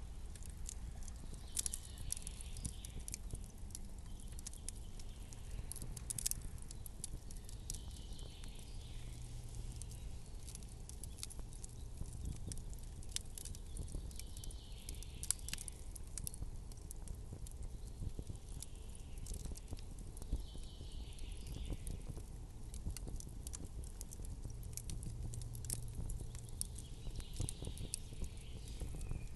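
Campfire crackling: irregular sharp pops and snaps over a low steady rumble, with a soft hiss that swells every five or six seconds.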